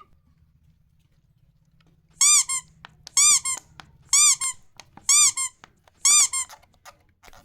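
Five evenly spaced double squeaks, about one a second, each a short high squeak rising and falling in pitch followed by a shorter one, after a couple of seconds of near silence.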